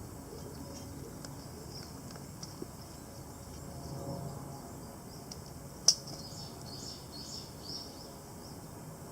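Wood campfire crackling, with scattered small snaps and one sharp, loud pop about six seconds in.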